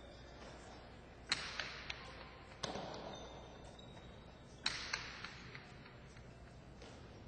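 Jai-alai pelota striking the walls of the fronton three times in a rally, each sharp impact followed by an echo, with softer clicks of catches and bounces between them.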